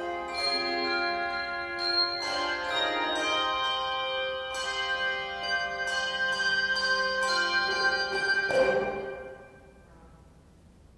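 Tuned bells playing a piece of music, notes and chords struck and left to ring on over one another. A final loud chord about eight and a half seconds in rings out and fades away.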